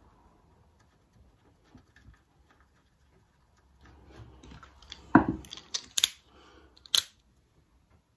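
Small screws being fitted back by hand into the clutch cover of a Suffolk Super Colt mower. Faint fiddly clicks come first, then about five seconds in a knock and a few sharp metallic clicks.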